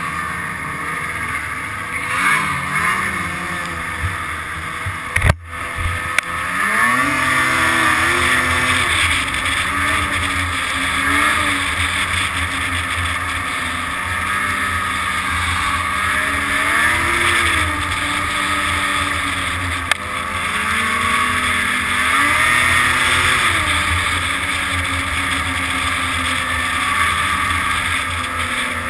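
Snowmobile engine running under way, its pitch rising and falling as the throttle is worked, with wind and track noise on the hood-mounted microphone. A sharp knock sounds about five seconds in.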